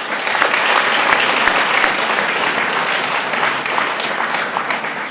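Audience applauding: dense, steady clapping that eases slightly toward the end and then cuts off abruptly.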